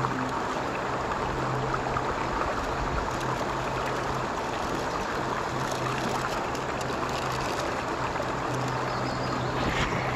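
Shallow creek water rushing and babbling over rocks in riffles, steady throughout, with a low hum coming and going underneath. A few knocks near the end as the phone is handled.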